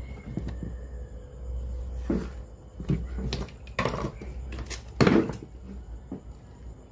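Irregular knocks and clicks of small hard objects being handled and set down, about half a dozen, the loudest about five seconds in, over a low steady hum.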